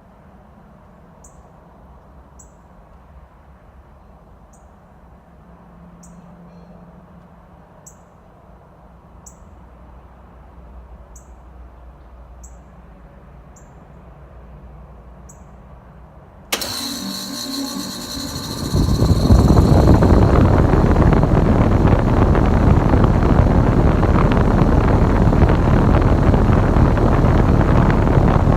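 2015 Bryant central air conditioner's outdoor unit starting up after a quiet stretch. About two-thirds of the way in, its LG compressor kicks on suddenly with a high whine, and about two seconds later the running noise jumps to a loud, steady rush of air as the condenser fan comes up to speed.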